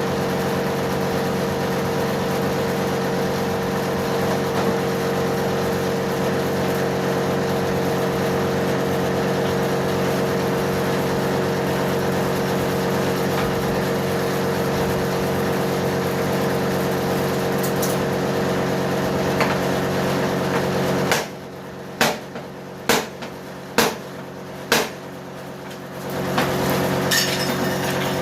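Steady machine drone with several held tones. About twenty seconds in it stops, and five sharp knocks ring out about a second apart before the drone starts again.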